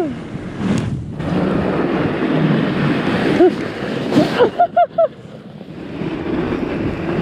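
Fat bike rolling fast over packed snow, a steady rush of tyre noise and wind on the fork-mounted camera's microphone. About four seconds in the rider crashes: a few sharp knocks and several short yelps, then the rushing drops away as the bike stops in the snow.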